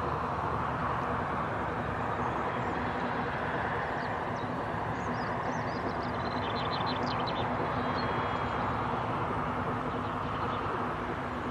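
Narrow-gauge steam locomotive Dolgoch working a passenger train, heard from a distance as a steady rush of sound. Small birds chirp briefly about halfway through.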